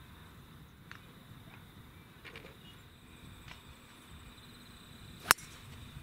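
A golf club striking a teed-up golf ball on a full swing: one sharp, loud crack about five seconds in.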